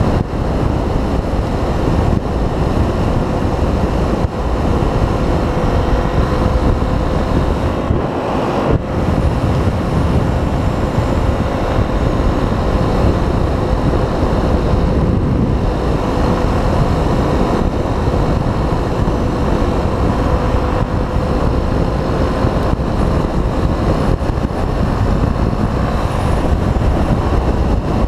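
Yamaha 250 dual-sport motorcycle's single-cylinder engine running at a steady cruising speed, with a steady tone, under heavy wind noise on the microphone.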